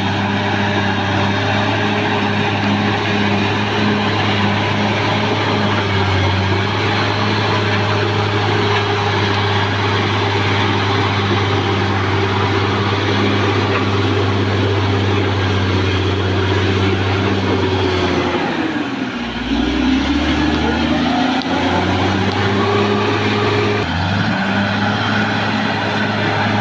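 Caterpillar D6R XL bulldozer's diesel engine running steadily under load, with a faint high whine over it. About two thirds of the way through, the engine note sags steeply and then climbs back up.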